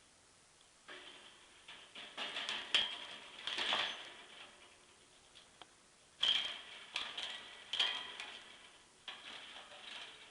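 Budgie scrambling on the wire bars of its cage, rattling and clinking the cage in three bursts.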